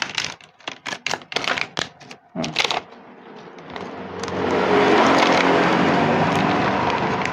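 Sharp crackles and clicks, like plastic food packaging being handled, for about the first three seconds. Then a motor vehicle's engine noise swells up about halfway through and holds steady as the loudest sound.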